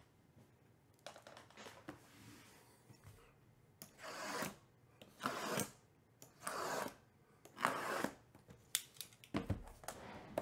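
A blade slitting the plastic shrink wrap on trading-card hobby boxes: a series of short scratchy strokes, most of them in the second half.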